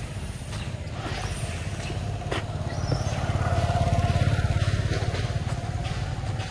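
A motor vehicle's engine running close by, a low pulsing rumble that swells about halfway through and then eases off.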